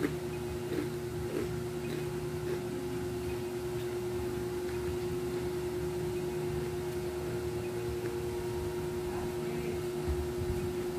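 Steady single-pitch hum of a running appliance, with faint chewing and handling of crispy fried crab now and then.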